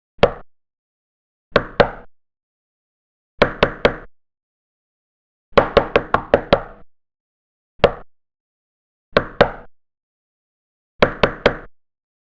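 Knocking on a door in short groups: one knock, then two, four, a quick run of about seven, one, and two sets of three, with dead silence between the groups.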